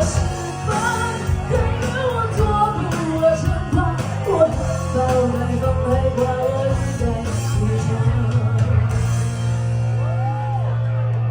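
Live rock band with a singer belting wordless, gliding vocal lines over drums and bass, then a long held note, and the band sustaining a chord through the second half.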